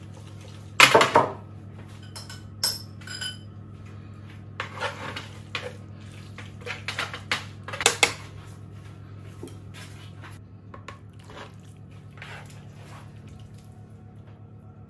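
Metal tongs clacking and scraping against a nonstick frying pan as fettuccine carbonara is stirred and tossed. The loudest clatter comes about a second in, with more clacks through the first half and fewer after. A steady low hum runs underneath.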